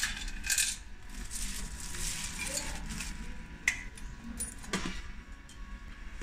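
Coins clinking and rattling in the metal coin tray of a mechanical gumball vending machine as they are gathered, with metal and plastic handling noise as the clear candy globe is lifted off its base. Two sharp clicks come in the second half.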